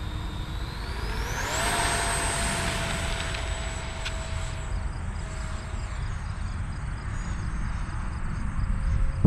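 A radio-controlled model jet's motor spools up to takeoff power, a whine rising steeply over the first two seconds, then holding steady and slowly fading as the plane climbs away, over a steady low rushing noise. A sharp knock comes at the very end.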